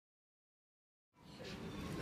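Dead silence for about the first second, then outdoor street ambience fades in: a steady low rumble with a faint hiss of a busy pedestrian street.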